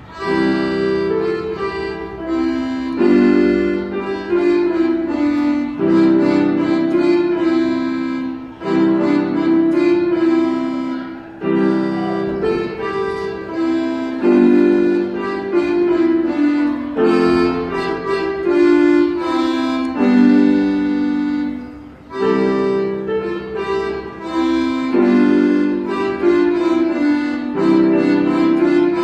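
Button accordion playing a tune: a melody over sustained chords, in phrases of a few seconds each with short breaks between them.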